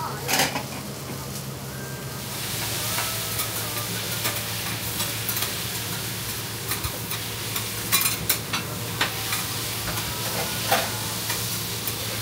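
Noodle pancakes sizzling on a steel teppan griddle, the sizzle growing louder about two seconds in. Metal spatulas scrape and clink against the griddle now and then, over a steady low hum.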